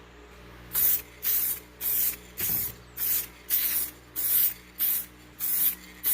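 Paint being sprayed in about ten short, even hisses, roughly two a second.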